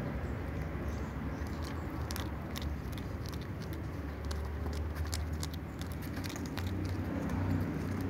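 Cat crunching dry kibble: scattered small sharp clicks over a low steady rumble.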